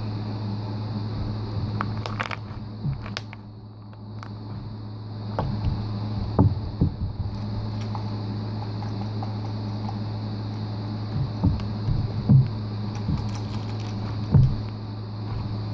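Grey slime being squeezed and kneaded by hand, giving several short squelches and pops, over a steady low hum.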